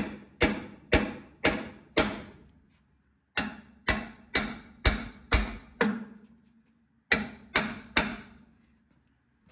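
Hammer blows on the steel top-hat section of a 1950 Ford F1 frame, bending it up. The blows come about two a second in three runs of five, six and three, each one ringing briefly.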